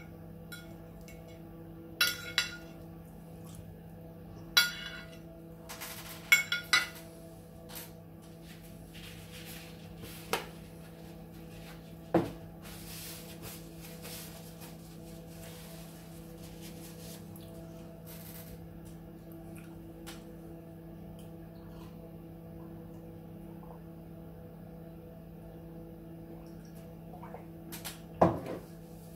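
Metal fork clinking and scraping on a plate, with a handful of sharp clinks in the first seven seconds and a couple more later. A steady low hum runs underneath, and a single knock comes near the end.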